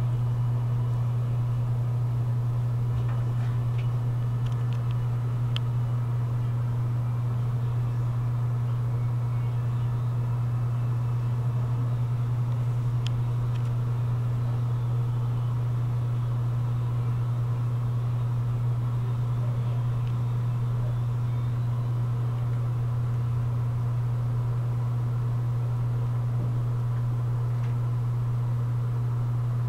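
A steady low hum that never changes in pitch or level, with a couple of faint clicks.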